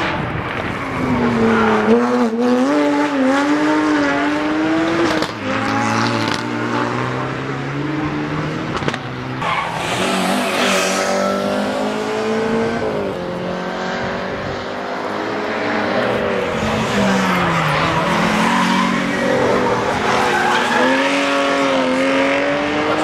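Rally cars driven hard: engines revving, their pitch climbing and dropping again and again through gear changes.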